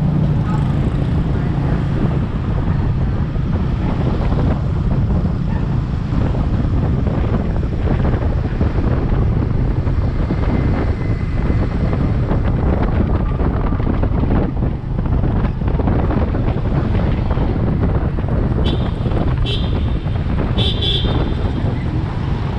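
Wind buffeting the microphone over a motorbike's engine and road noise while riding through city traffic. Several short horn beeps sound near the end.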